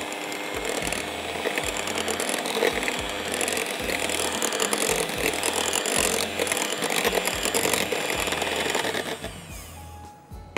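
Electric hand mixer running steadily, beating a whipped-cream mixture in a bowl. It cuts off about a second before the end.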